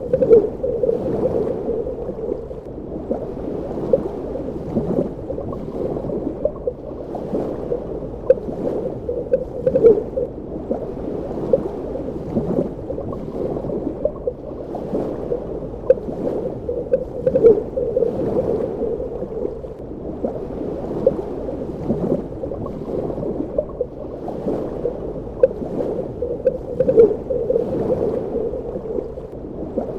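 Underwater ambience: a steady, muffled wash of moving water with frequent bubbling and gurgling pops and slow swells every few seconds.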